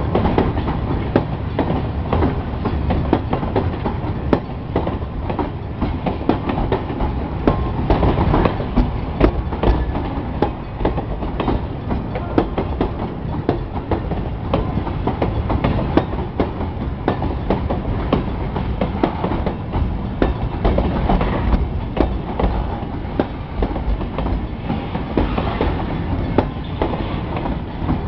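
Covered hopper cars of a long grain train rolling past close by, with a continuous rumble of steel wheels on rail and many sharp clacks as the wheels cross rail joints.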